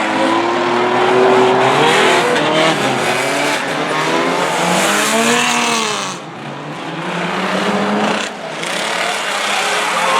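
Several banger racing cars' engines revving hard on the track, their pitches rising and falling as they accelerate and lift off, with the sound briefly dropping twice in the second half.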